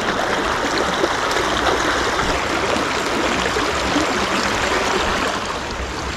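Shallow stream running over a rock bed, a steady rush of water.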